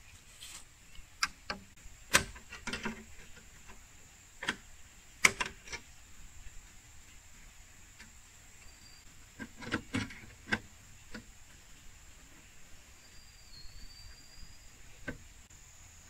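Irregular sharp clicks and knocks of bamboo poles and tie wire being handled as a bamboo frame is lashed together, loudest about two and five seconds in, with a cluster around ten seconds. A steady high insect drone runs underneath.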